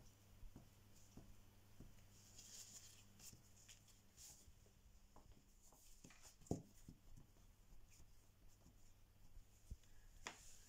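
Near silence: faint scattered taps and scrapes of a knife cutting dough strips on an oilcloth-covered table, with one sharper knock about six and a half seconds in.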